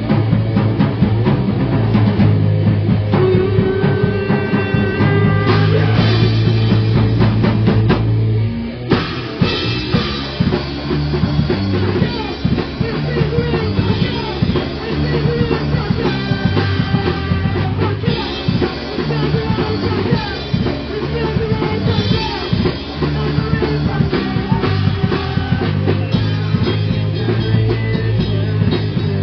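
Live punk rock band playing: electric guitar, bass guitar and drum kit at full volume, with a brief break about eight seconds in before the drums come back in with hard hits.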